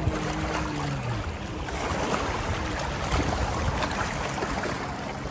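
Splashing and sloshing of people wading through shallow seawater along the shore, with a low steady hum that drops in pitch and fades out about a second in.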